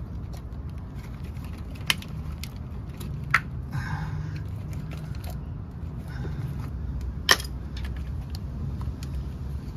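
Sharp plastic clicks and a short scrape as a flathead screwdriver pries the locking tab of a wiring-harness connector and the connector is pulled apart: three distinct clicks, the loudest near the end. A steady low rumble runs underneath.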